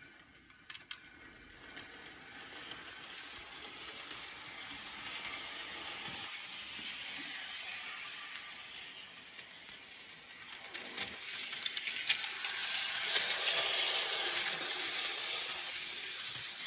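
HO-scale Thomas & Friends Gordon model locomotive running on its track: a steady whirring rattle from its small electric motor and wheels that swells and fades as it travels around the layout, loudest near the end. A quick run of sharp clicks comes a little past the middle.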